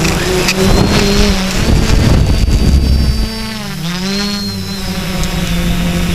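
Quadcopter's electric motors and propellers whirring, heard from the camera mounted on the craft; a little past halfway the pitch dips and rises again as the motor speeds change during a turn.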